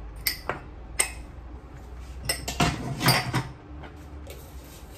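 A spoon clinking against dishes while seasoning is spooned out: a few sharp single clicks in the first second, then a clattering run of knocks and scrapes from about two and a half to three and a half seconds in.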